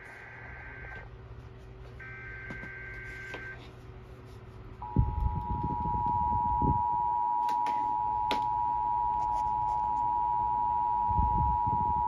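Emergency Alert System alert played through a TV speaker: two buzzy digital bursts of SAME header data, each about a second and a half long, then the steady two-tone EAS attention signal. The attention signal starts about five seconds in and is much louder than the data bursts, with some low rumbling under it.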